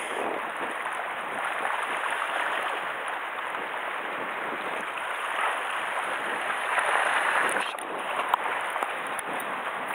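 Steady hiss of sea water washing and splashing against shoreline rocks, with a few faint clicks about eight seconds in.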